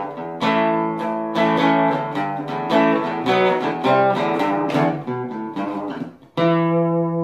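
Outro music on acoustic guitar: a run of plucked notes, then a brief gap and a final strummed chord about six seconds in that rings out and slowly fades.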